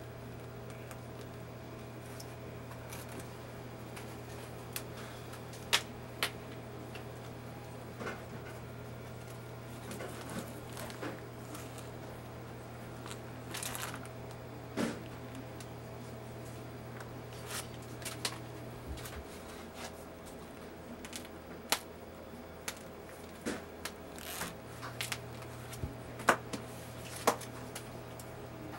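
Quiet workroom tone: a steady low hum, which drops out for a few seconds past the middle, under scattered light clicks and taps of hands and tools working at a cake-decorating table, with a few sharper single ticks.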